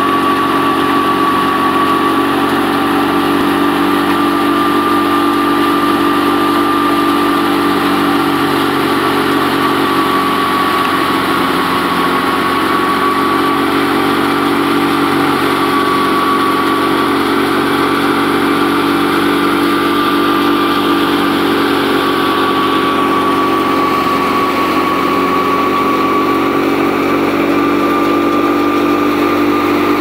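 Tractor-driven wheat thresher running steadily: the tractor engine under constant load with the threshing drum and fan whirring, and a steady high whine over it.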